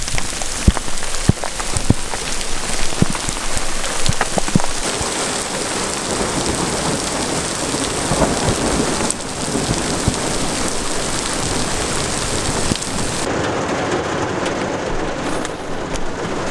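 Heavy rain pounding down during a thunderstorm, with sharp drop impacts in the first few seconds and thunder rumbling under the downpour.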